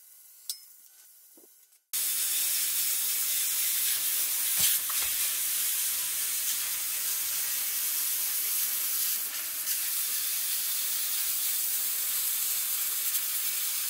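Hand-held plasma cutter cutting through the steel end of a propane tank: a steady, loud hiss from the torch that starts abruptly about two seconds in.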